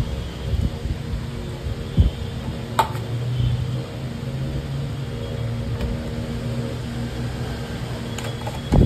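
Steady low machine hum with a few short knocks.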